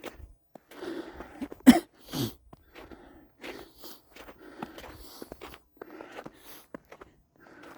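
Footsteps crunching on a snowy trail, one step about every half second, with one much louder sharp sound a little under two seconds in.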